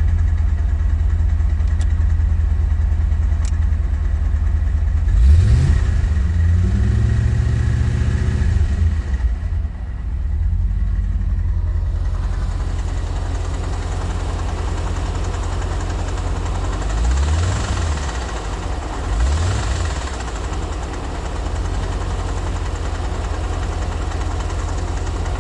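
Corvette C4's V8 engine idling hot, revved up and held for a few seconds about five seconds in, then blipped twice near the two-thirds mark. The owner posts this as the noise it makes when hot, together with low oil pressure.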